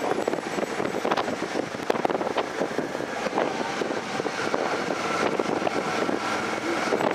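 Bicycle riding in a large group on a paved road: steady tyre and road noise with a constant crackle of small rattles and clicks from the bike.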